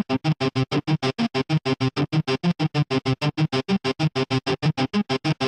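Music: a song intro played on an electronic keyboard, chopped into fast, evenly spaced pulses, its notes shifting through a short repeating pattern.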